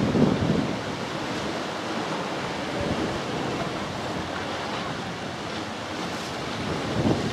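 Steady rushing roar of a twin-engine jet airliner climbing away after takeoff, mixed with wind buffeting the microphone.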